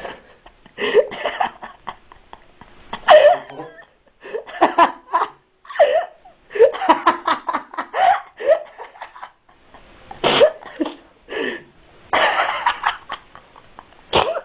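People laughing hard in repeated bursts, with short breaks between the fits.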